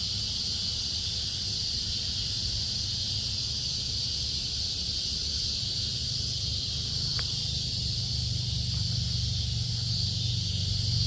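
Steady high-pitched insect chorus, with a low rumble beneath it that swells a little near the end and one sharp click about seven seconds in.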